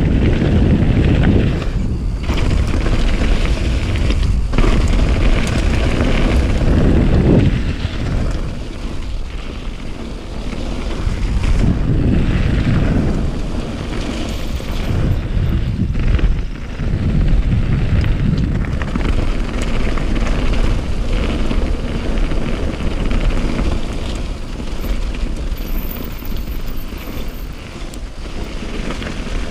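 Heavy wind rush buffeting the microphone while travelling at speed, with a deep rumble that swells and eases in gusts.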